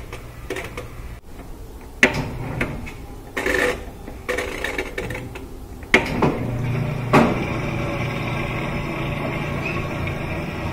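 Whirlpool top-loading washing machine being set to spin: a few clicks and knocks from its controls. At about six seconds its motor and drain pump start with a jolt and then run with a steady hum as the washer begins to drain and spin up, working again now that its lid switch is fixed.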